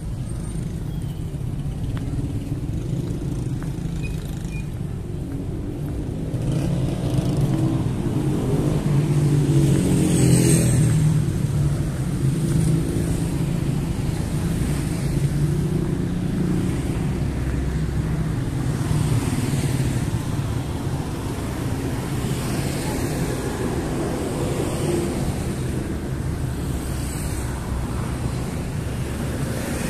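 Road traffic along a city street: a steady rumble of cars driving by, with one vehicle passing closer and louder about ten seconds in.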